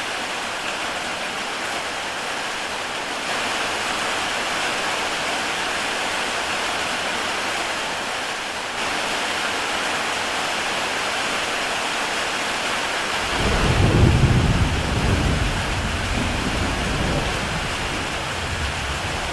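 Heavy rain falling on a tile roof, a steady hiss of drops. About thirteen seconds in, a low rumble of thunder sets in, loudest at first, then rolling on more weakly.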